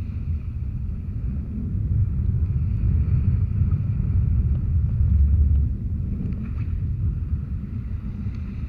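Wind buffeting the action camera's microphone, a heavy, unsteady low rumble that swells about two seconds in and eases off a little after five seconds, over a faint wash of small waves.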